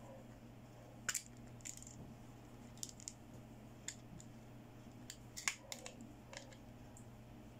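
Hard plastic clicks and taps from a children's toy makeup compact being handled as its clear hinged plastic lid is swung open and the palette trays are fingered, with the busiest run of clicks about five and a half seconds in. A faint steady hum lies underneath.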